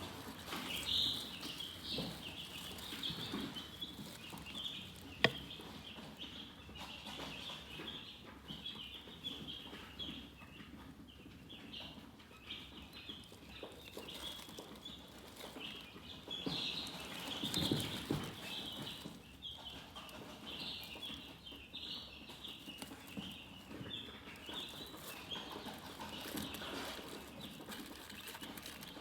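Chickens chirping in many short, high peeps that run on without pause. A single sharp click about five seconds in and a low rustling thump near eighteen seconds stand out.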